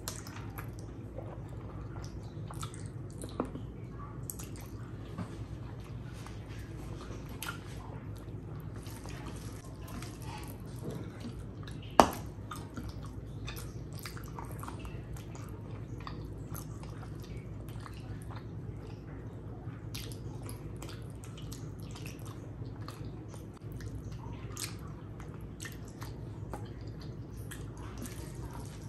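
Close wet chewing and mouth smacking as handfuls of rice mixed with curry are eaten by hand, with fingers squishing the food, over a steady low hum. Many small clicks run all through, and one sharp, much louder click comes about twelve seconds in.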